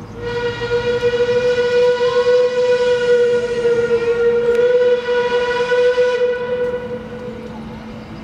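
Steam whistle of ČSD class 556.0 steam locomotive 556.036 sounding one long, steady blast of about six seconds, fading out near the end.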